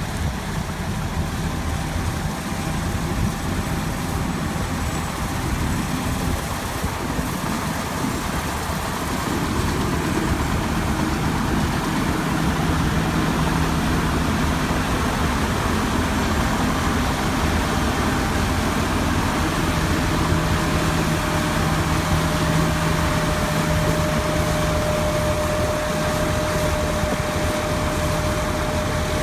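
John Deere S-series combine running while harvesting wheat: a steady diesel engine drone that grows louder about ten seconds in. A steady high whine joins about two-thirds of the way through.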